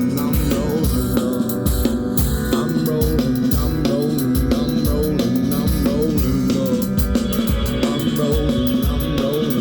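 Rock band playing an instrumental passage: drums and bass under a short bending melodic figure that repeats about once a second.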